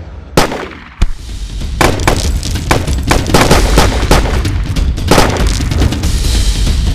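Movie gunshot sound effects: two single shots about half a second and a second in, then rapid bursts of gunfire, over a steady low rumble.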